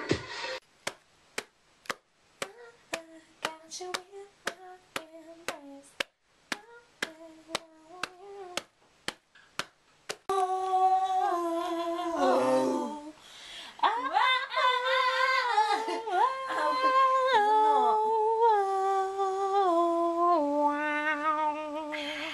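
Finger snaps keeping a steady beat, about two a second, under soft humming of a tune. About ten seconds in, loud wordless humming of the melody takes over, sliding between notes.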